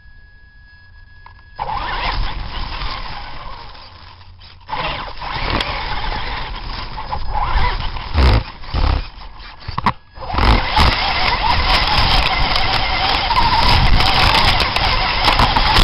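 Radio-controlled monster trucks racing: a loud, rough motor-and-tyre noise that starts suddenly about a second and a half in, drops out briefly twice, and returns with scattered sharp clicks and scrapes.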